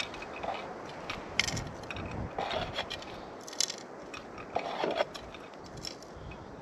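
Digging in stony dirt while hunting a detected gold nugget: a scoop scraping and crunching through gravelly soil, with sharp scrapes about a second apart.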